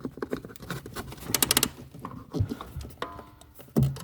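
Foot-operated parking-brake pedal ratchet of a 1971 Oldsmobile 98 clicking as the pedal is worked, with a quick run of clicks about a second and a half in: the ratchet teeth, freed up with penetrant, now catching.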